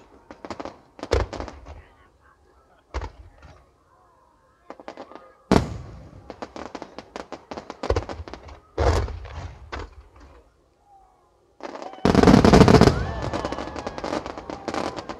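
Aerial firework shells bursting overhead in clusters of sharp booms with crackling tails. About twelve seconds in, a dense, loud barrage of many bursts at once.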